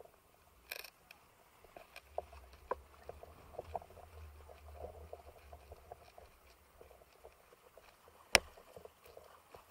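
Scattered light clicks and knocks of kitesurfing gear being handled close to the body-mounted camera, with one sharp loud click about eight seconds in. A low rumble of wind on the microphone runs under the middle part.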